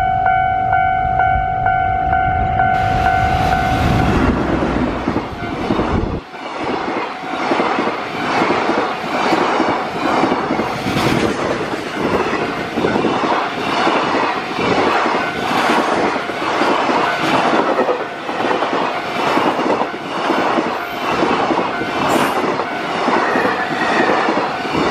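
Freight train hauled by an EF210 electric locomotive passing close by, its container wagons' wheels clattering over the rail joints in a regular rhythm. A steady pitched tone sounds over the approach for the first few seconds.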